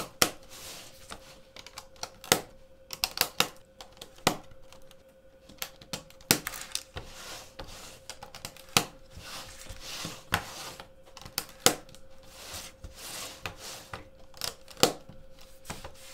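Hard plastic LEGO plates clicking and clattering against each other as a hinging build is flexed into a new pattern by hand, with irregular sharp clicks and soft sliding rustle between them. A faint steady hum runs underneath.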